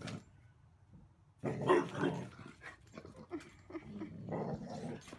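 A dog barking and growling in bouts, the loudest burst about a second and a half in, followed by shorter, quieter grumbles.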